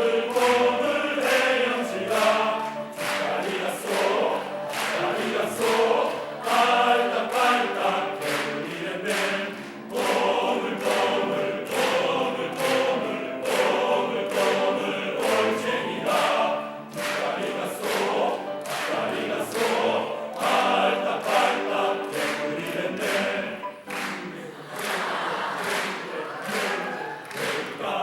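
Choir singing a Korean children's song in a quick, bouncy rhythm, with piano accompaniment.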